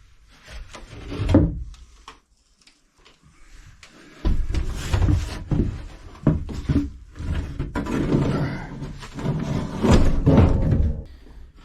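Wooden galley counter top being wrenched and pried off inside a boat: irregular knocks, creaks and scraping of wood, with a short lull before about seven seconds of steady prying.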